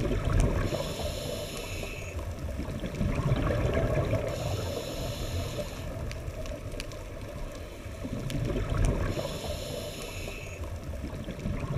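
Scuba diver breathing through a regulator, recorded underwater: three hissing inhalations about four to five seconds apart, over a steady bubbling rumble of exhaled air and water.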